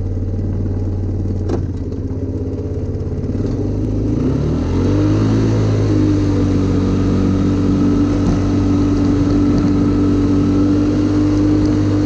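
ATV engine running, rising in pitch about four to five seconds in as it speeds up, then holding a steady higher drone while the quad drives on.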